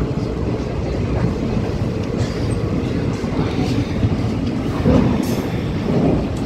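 Passenger train coach of the Leelan Express running along the track, with a steady low rumble of wheels on rail, heard from an open doorway of the coach.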